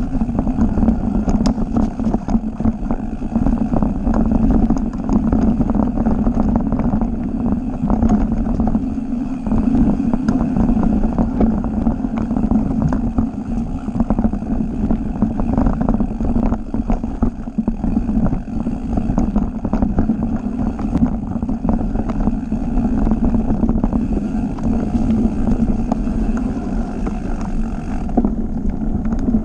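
Mountain bike riding fast down a dirt forest trail: a steady rumble of knobby tyres over dirt and roots, with many small rattles and knocks from the bike.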